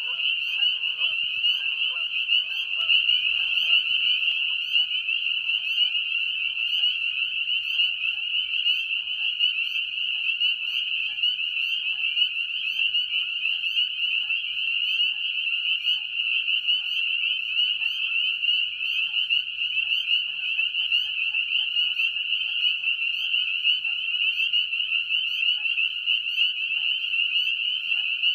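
Dense chorus of spring peepers: many short rising peeps overlapping into a steady high-pitched trill. A few lower calls fade out in the first few seconds.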